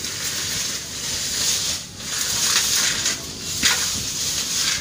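Tall grass and brush rustling and crackling as a bicycle is dragged out through it, with a couple of brief knocks about two and a half seconds in.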